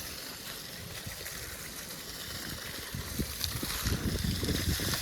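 Running water with a steady rushing hiss. A low, irregular rumble grows louder from about three seconds in.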